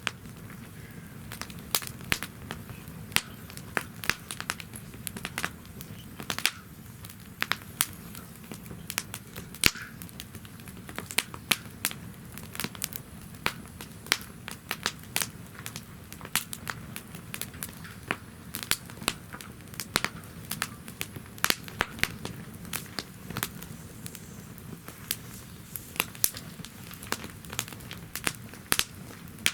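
Wood fire burning in a fire pit stand, crackling and popping with sharp irregular snaps over a low steady rush of flame.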